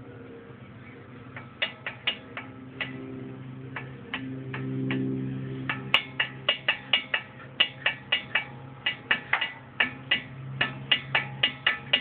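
Ford Mustang brake noise: a string of short, sharp, ringing clicks or chirps. They come sparsely at first, then several a second from about halfway, over a steady low hum.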